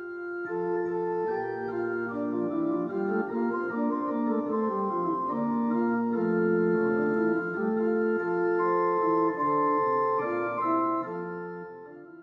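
Instrumental hymn music with no singing: slow, sustained chords held steady and changing about every half second to a second, swelling in at the start and fading out near the end.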